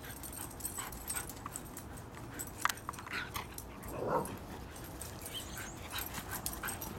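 Faint, brief sounds from a greyhound at play, with a few light clicks scattered through and one short, louder sound about four seconds in.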